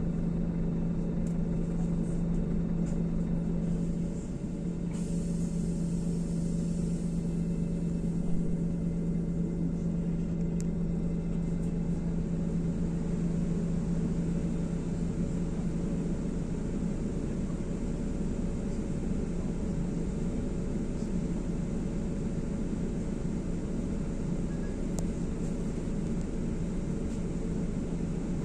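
Inside an IVECO Crossway LE bus under way: the Cursor 9 diesel engine and road noise make a steady low drone. A hum in the drone weakens about halfway through, and a single sharp click comes about eight seconds in.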